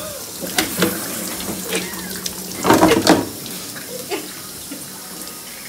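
Water running into a bathtub from a tap or handheld shower, with short splashes as a wet puppy is bathed. A louder burst of splashing comes about three seconds in.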